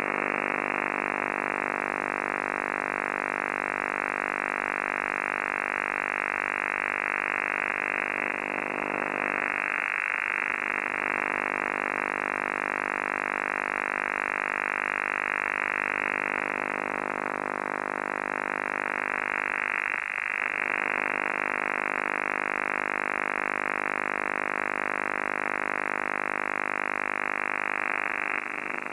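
Unidentified buzzing transmission received on the 11-metre CB band, heard through the radio receiver: a steady, dense buzz of many evenly spaced tones that briefly fades three times, about every ten seconds.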